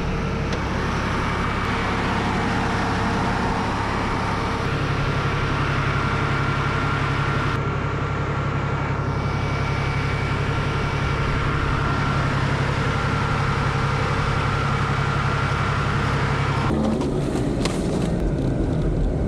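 Off-road 4x4 engine idling steadily. Near the end the sound changes to a vehicle driving, heard from inside the cab, with many short rattles and knocks.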